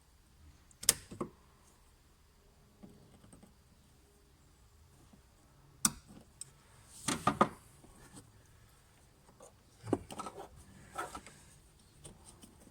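Scattered sharp clicks and knocks of hands working on a fuel pump and its pipe fittings: a loud click about a second in, another near six seconds, a quick cluster about seven seconds in, and smaller ones near the end.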